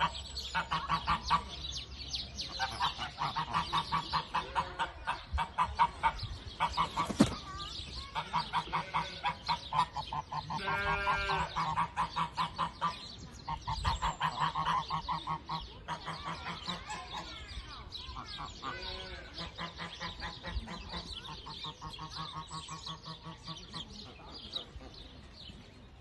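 A flock of domestic geese honking and cackling in quick, repeated calls, dense for the first two-thirds and thinning out toward the end. There is a single sharp knock about seven seconds in.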